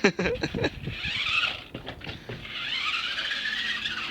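Car revving with its wheels spinning: a squealing whine rises and falls twice as the stuck car tries to drive free. A few sharp knocks come in the first second.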